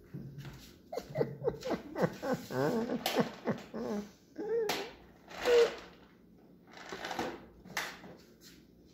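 Long-haired cat meowing over and over, asking for treats: a quick run of short rising-and-falling calls, the loudest about halfway through. Rustling of a plastic treat bag is mixed in.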